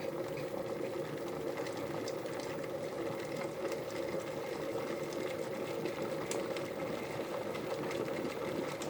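3 kW Tesco electric kettle heating water close to the boil, a steady even noise of the water coming up to temperature.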